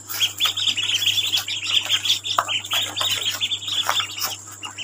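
A group of ducklings peeping: many short, high chirps in quick overlapping succession, thinning out near the end, over a steady low hum.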